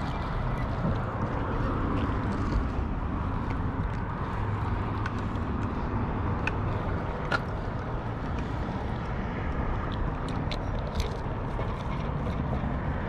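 Steady wind noise buffeting the microphone, with scattered light clicks from fishing tackle being handled while a lure is switched.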